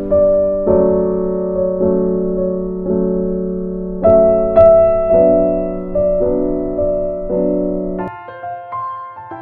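Slow background piano music, a sustained chord struck about once a second and fading between strikes; near the end the low notes drop away and lighter, higher notes follow.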